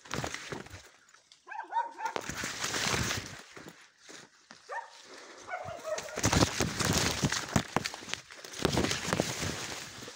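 Hunting dog barking in two short bouts, about a second and a half and five seconds in, baying at an armadillo's den. Over it runs the rustle of corn leaves and footsteps as someone pushes through the cornfield.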